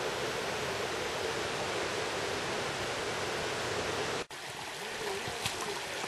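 Mountain stream rushing steadily over rocks. About four seconds in, the sound cuts to a quieter, closer stretch of the stream with gurgling water.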